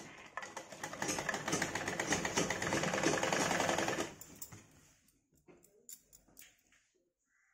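Domestic sewing machine stitching a seam that joins blouse pieces: a fast, even run of needle clicks that picks up speed about a second in and stops after about four seconds. A few faint clicks and cloth-handling sounds follow.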